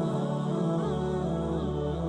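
Background music: a slow, ambient new-age track with sustained tones, a low drone coming in about a second in, and a wavering chant-like voice.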